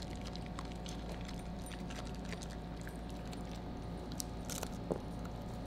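Pomsky puppy chewing a piece of Brussels sprout: faint scattered crunches and small clicks, a few sharper ones between about four and five seconds in, over a low steady room hum.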